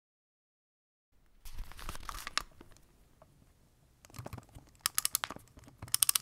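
Crunching, crumpling noises in two rough bursts, ending in a quick run of sharp crackles.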